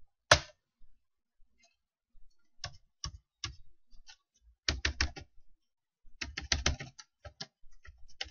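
Computer keyboard keystrokes in irregular short runs, with one louder keystroke near the start and quick clusters of keys in the middle and toward the end.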